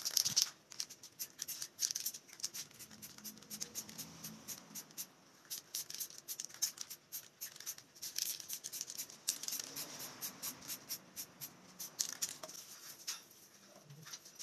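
Aerosol spray-paint can being shaken and sprayed: a fast clicking rattle with bursts of hiss, the hiss strongest about eight to ten seconds in.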